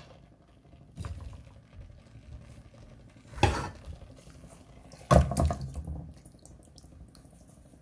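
Marinated chicken being tipped into a kadhai of hot roasted masala: a few wet splats with sizzling, the two loudest about three and a half and five seconds in.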